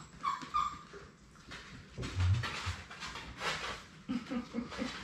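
Six-week-old Labrador Retriever puppies whimpering and yipping at play: two short high whimpers just after the start, a low thump about two seconds in, then scuffling and a quick run of short low sounds near the end.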